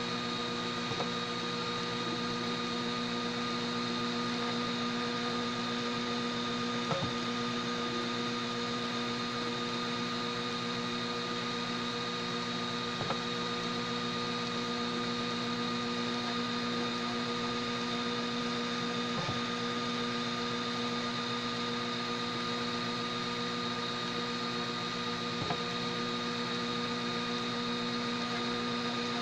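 Homemade 3D printer running mid-print: a steady mechanical hum made of several constant tones, with a faint tick about every six seconds.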